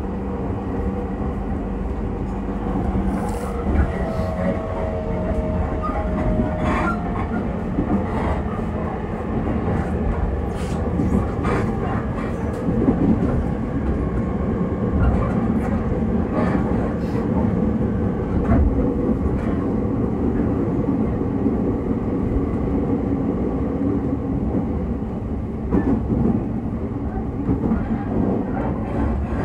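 Running sound of a JR East E231 series 1000 number-group (refurbished) electric train: a steady rumble of wheels on rail with scattered clicks over rail joints, and a short faint whine about four seconds in.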